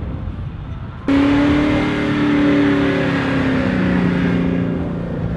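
Pickup truck engine running under load as it tows a rider on a snow tube. It comes in suddenly and loud about a second in, its note sliding slowly lower, over a rushing hiss.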